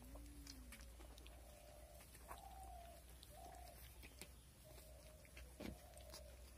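Near silence with a few faint, short animal calls, each about half a second to a second long and falling slightly in pitch.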